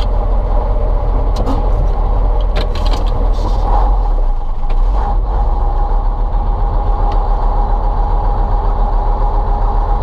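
Ural log truck's YaMZ-238 diesel engine running steadily with a low, even drone; a steady whine joins it about halfway through.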